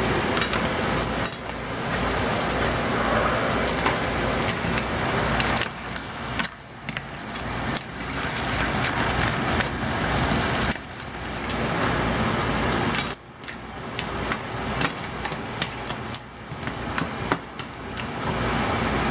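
Crab claws and green onions sizzling and bubbling in a thickened sauce in a hot skillet, with a metal ladle stirring them and clinking against the pan now and then.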